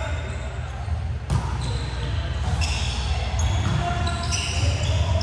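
Basketball game in a gym: a ball bounces on the court, with a sharp thud about a second in, over a constant low rumble, while voices call out in the echoing hall.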